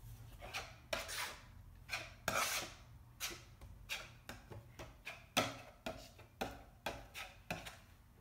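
A brush scrubbing thick gesso onto an MDF panel in short back-and-forth strokes, about two rasping strokes a second.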